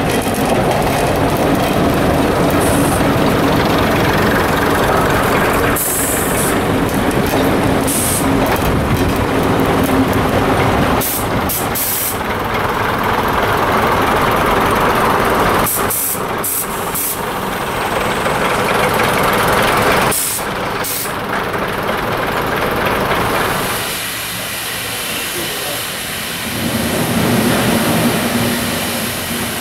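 Steam locomotive at work with its train: a loud hiss of steam over the rumble of the train. The sound drops back about three-quarters of the way through, then swells again.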